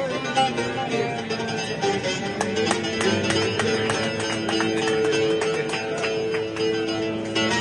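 Music played on plucked string instruments, with sustained notes under a run of sharp plucked strokes.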